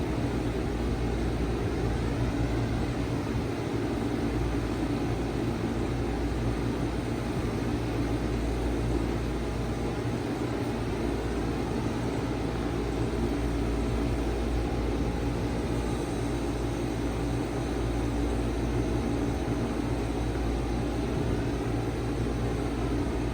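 A 1995 Bard 5-ton wall-hung heat pump running steadily in cooling mode: the compressor's low hum under the even rush of its condenser fan.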